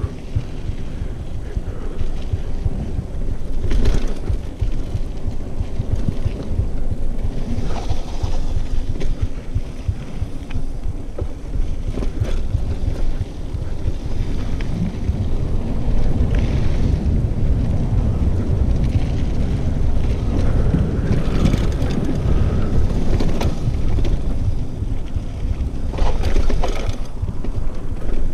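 Mountain bike riding fast down a dirt singletrack: a steady low rumble of tyres on dirt, with wind blowing on the microphone and a clack or rattle from the bike every few seconds.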